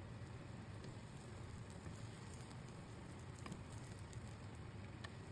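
Faint, steady sizzling of an egg omelette cooking in butter in a frying pan, with a few small crackles.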